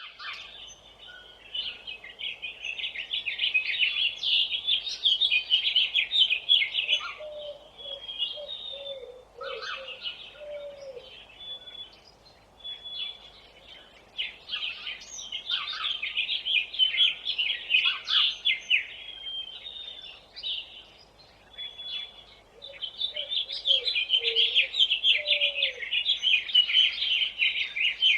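Songbirds chirping rapidly in bouts of several seconds, with scattered single chirps between them. A lower, swooping call is heard twice, in a short run each time.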